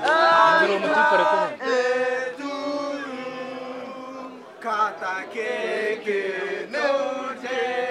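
Voices singing a chant-like tune with long held notes, softening about three seconds in and picking up again near five seconds.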